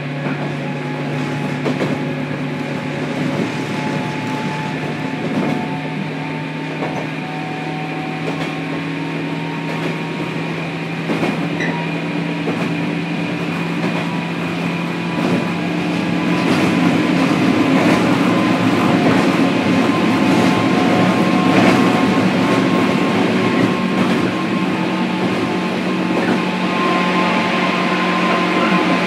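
JR Kyushu 103 series (1500 subseries) electric train running, heard inside the motor car KuMoHa 103-1512: a steady hum from the motors and running gear over wheel-on-rail rumble, growing louder about halfway through.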